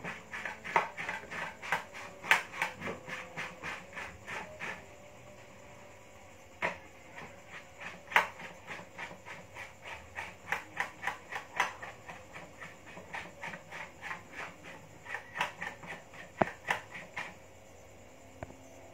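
Repeated sharp knocks, about three a second, in three runs separated by short pauses.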